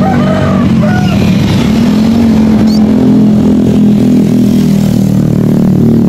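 Engines of road traffic passing close by, a continuous drone that shifts in pitch as vehicles go past. A few short chirps come over it in the first couple of seconds.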